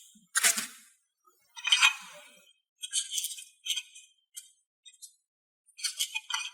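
A series of short kitchen clinks and rattles, like utensils or small dishes knocked together, with a quicker cluster near the end.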